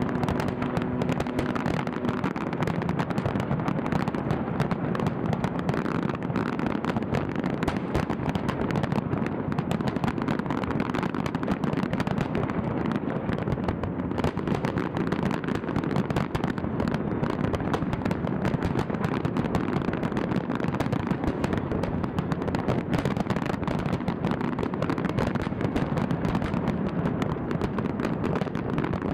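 Large fireworks display: a dense, continuous barrage of firework bursts and crackling with no pauses.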